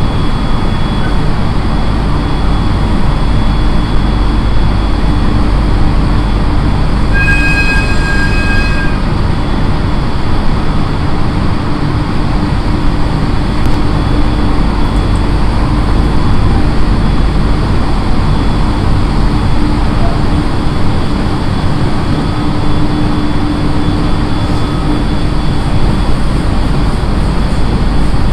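JR East 701 series electric train standing at a station platform: a steady hum and rumble, with faint steady tones running through it. About seven seconds in, a brief high ringing tone lasts under two seconds.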